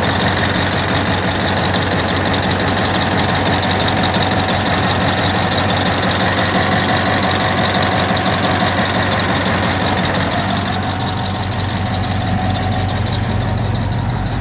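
Caterpillar 3408E V8 diesel of a D9R dozer running steadily at idle, easing slightly after about ten seconds. The owner puts its hard hot starting down to defective injectors on cylinders 1, 5 and 7 leaking too much return.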